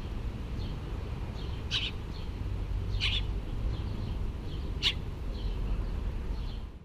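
A baby bird cheeping: a run of soft, high, short calls, with three louder, sharper chirps among them.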